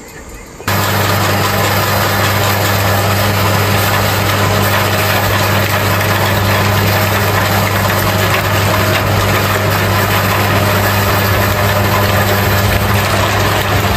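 Electric meat grinder running steadily as raw fish pieces are fed into it and minced. The motor starts up abruptly about a second in, with a strong low hum under the grinding noise.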